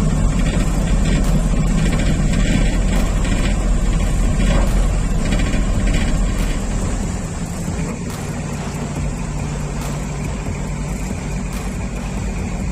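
Pilot boat's engines running steadily with a heavy low hum. Just past halfway the low rumble drops and the sound settles quieter, as if the engines ease off.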